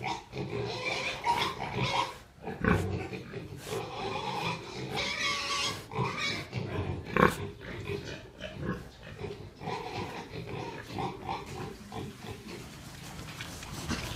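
Domestic pigs in a pen grunting and snuffling irregularly, with a couple of louder, sharper sounds about three and seven seconds in.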